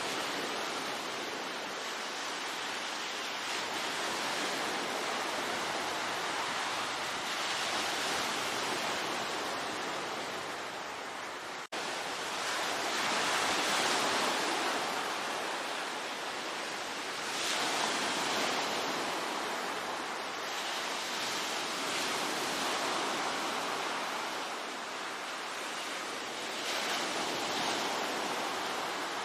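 Sea waves surging and washing on the shore: a steady rush of surf that swells every few seconds, with a momentary break in the sound about twelve seconds in.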